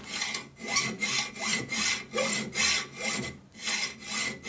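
Hand hacksaw with a dull blade sawing through a metal workpiece in steady back-and-forth strokes, a little over two a second.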